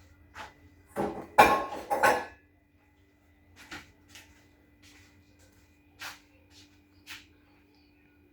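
Kitchen pots, pans and utensils clattering: a burst of loud knocks and scrapes about a second in, then scattered lighter clicks and taps.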